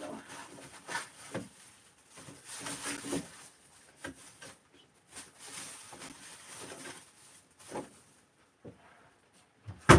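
Off-camera kitchen handling noises: scattered knocks, clicks and rustling, with a sharp knock just before the end. A short low tone sounds at the start and again about three seconds in.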